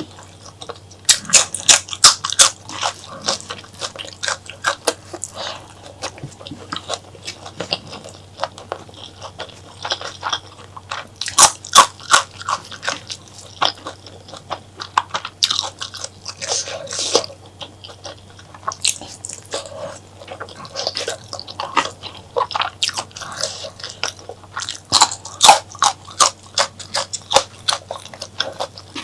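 Close-miked eating: wet, smacking chewing and biting of spicy mutton and honeycomb tripe curry, in irregular clusters of sharp clicks and squelches with short lulls between mouthfuls.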